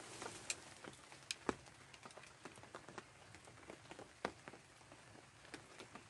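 Light rain dripping: scattered faint taps on a plastic raincoat and wet leaves, a few each second, with louder taps about one and a half seconds in and again about four seconds in.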